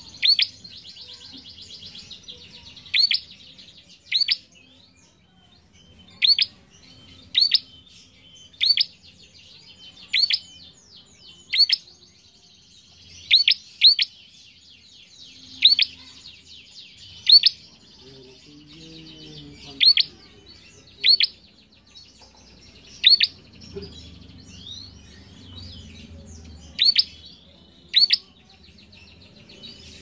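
A caged prenjak singing hard: loud, sharp high notes every one to two seconds over a continuous rapid, chattering trill.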